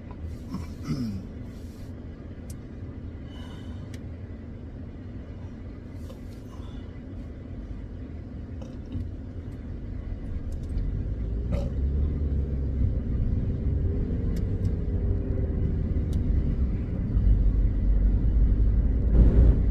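Low rumble of a car, getting louder about halfway through, with a faint steady hum in the middle stretch and a few scattered clicks.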